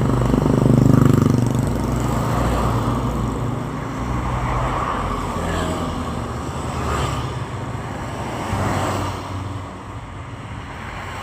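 Road traffic: cars and motorcycles passing one after another, each swelling and fading, with the loudest pass about a second in.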